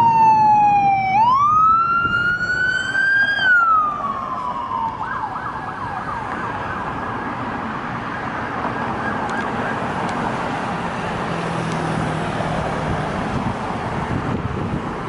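Sheriff patrol car's electronic siren: a wail that falls, rises and falls again, then switches to a rapid yelp about five seconds in and fades into traffic noise.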